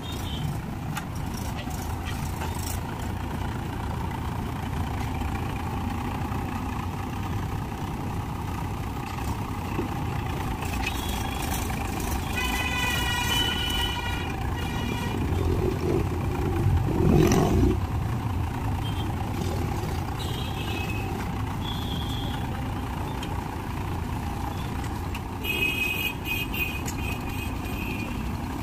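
Mahindra 275 DI XP Plus tractor's three-cylinder diesel engine running steadily as its front loader bucket scoops into a sand pile, with a louder surge a little past halfway. A horn toots briefly twice, about halfway through and near the end.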